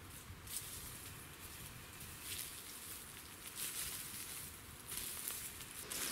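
Footsteps crunching through a thick layer of dry, dead leaves, a crackly rustle with each step, several steps about a second apart.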